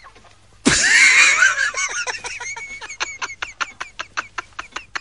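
A sudden loud burst of laughter about a second in, settling into steady rhythmic laughing at about five pulses a second.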